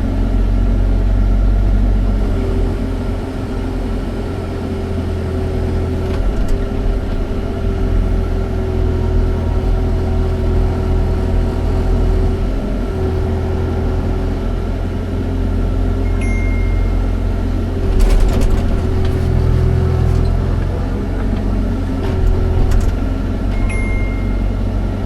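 Excavator diesel engine running steadily under a loud low drone, with a steady whine that drops out and comes back several times and a few sharp knocks.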